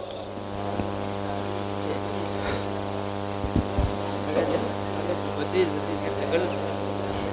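Steady electrical mains hum, a buzz with many evenly spaced overtones, with a few faint knocks and distant voices under it.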